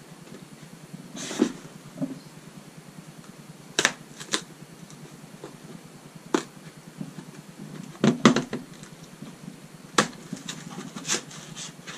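Cardboard Lego set box being handled and opened by hand: scattered sharp taps and knocks, a short cluster of them about eight seconds in, with a brief scrape just before the first one.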